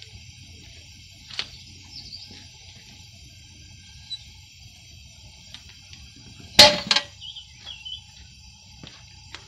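The steel lid of a propane-fired Devil Forge melting furnace is set down on the furnace body with a loud double clang about two-thirds of the way in. Under it is the low steady rush of the burner.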